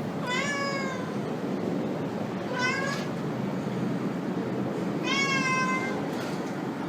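A cat meowing three times, high-pitched calls a couple of seconds apart, over a steady background hiss.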